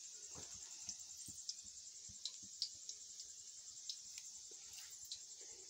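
Crickets chirring steadily in a high, even trill, with scattered light clicks and taps from the phone being handled.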